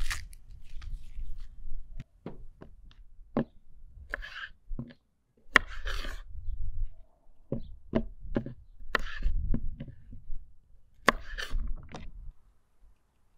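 Knife slicing carrots on a wooden cutting board: a run of irregular sharp knocks of the blade on the wood, with short crisp crunches.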